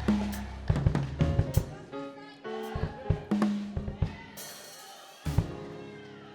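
Music with a drum kit beat, bass drum and snare over steady bass tones. The low end drops out for about a second past the middle, then a drum hit brings it back.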